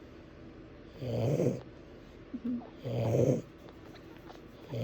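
A resting dog snoring, three snores about two seconds apart.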